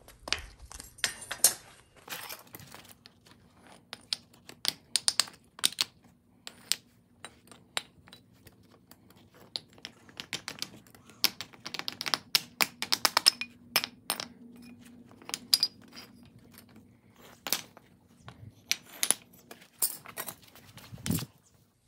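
Sharp metallic clanks and knocks as freshly cast aluminum ingots are knocked out of their molds with tongs and dropped onto concrete, coming in irregular clusters of strikes.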